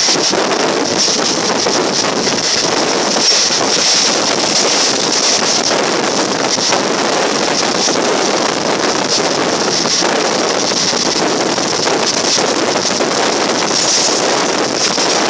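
Steady rushing wind and running noise of a passenger express train at speed, heard from an open coach door, with wind buffeting the microphone throughout.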